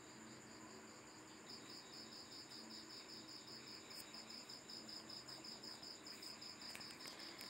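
Faint cricket chirping in a fast, even pulse of about five chirps a second, over near-silent room tone; the chirping grows a little clearer about a second and a half in.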